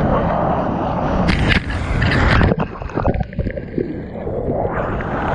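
Seawater rushing and sloshing against a camera held at the surface of the surf, with sharper splashes about a second and a half and two and a half seconds in, easing off briefly then building again near the end.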